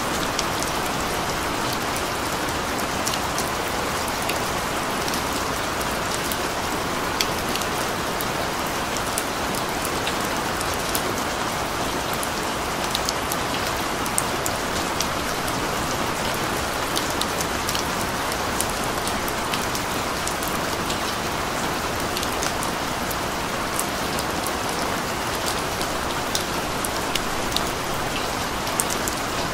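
Steady rain, an even hiss with many sharp drop ticks scattered through it.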